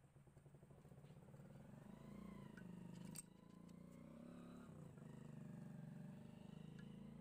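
Faint low engine drone, wavering slowly in pitch, with one sharp click about three seconds in.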